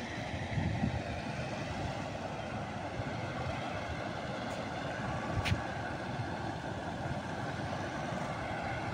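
Steady rumble and hiss of a moving vehicle, heard from on board as it travels along a road, with one short knock about halfway through.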